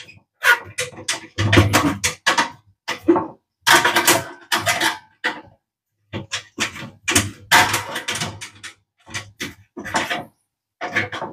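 Sheet-metal casing of an oven toaster clattering and scraping in irregular bursts as a hand works inside it to reach a screw.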